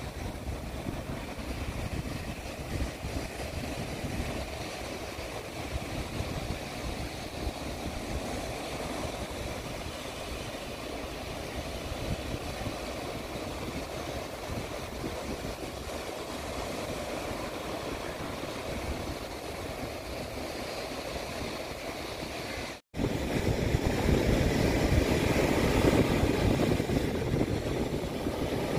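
Sea surf breaking and washing onto a sandy beach, with wind buffeting the microphone. After a brief dropout near the end, the surf is louder.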